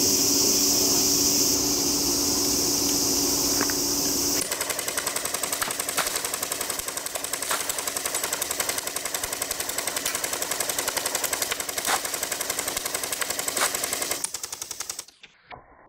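A steady high-pitched hiss for about four seconds. Then an airsoft electric rifle fires on full auto: one rapid, even string of shots lasting about ten seconds, which stops near the end.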